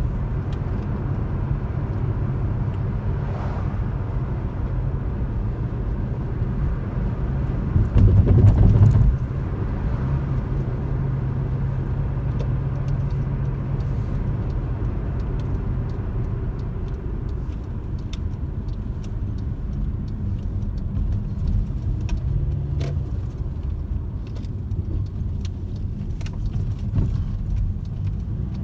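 Car driving, heard from inside the cabin: a steady low rumble of engine and tyre noise, with a louder rumble for about a second some eight seconds in and faint clicking rattles here and there.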